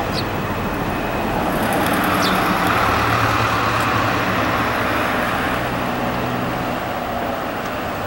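Electric train running on the line, a steady rumble that swells to its loudest about three seconds in and then eases off.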